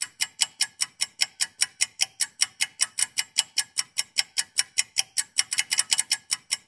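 Clock ticking: sharp, evenly spaced ticks, about five a second.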